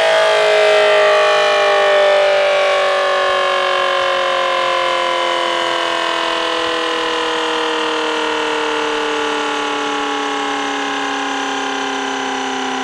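Prototype ACA Allertor-style siren with an 8/12-port rotor, sounding its two-tone chord as it winds down, the pitch falling slowly and the level easing off. Its sheet-alloy ring sits flush against the stator, which restricts the airflow.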